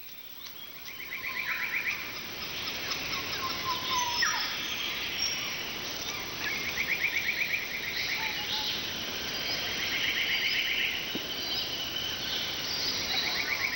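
Bird chorus in the bush: small birds chirping and whistling, with a rapid trill of about a second repeating three times over a steady background hiss.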